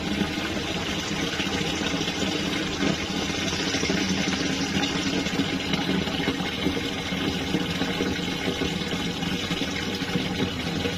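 Water running steadily into a plastic water tank over a steady mechanical hum, as the tank is filled to test a bitumen patch over its leaks.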